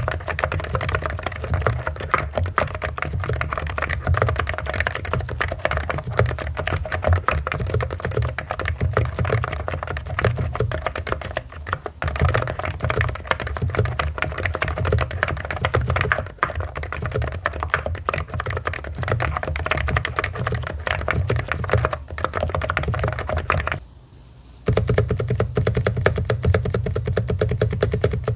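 Fast, continuous typing on a Hansung GK898B electro-capacitive keyboard, a dense run of key strokes that stops briefly about three-quarters of the way through, then carries on.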